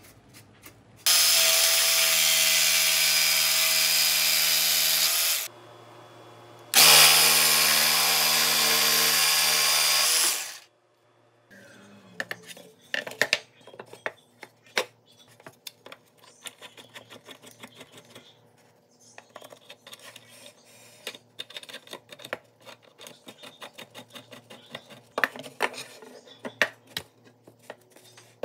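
Cordless drill with a twist bit boring into plywood in two steady runs of about four seconds each. After that, light clicks and rubbing of wooden parts being handled and fitted onto steel rods.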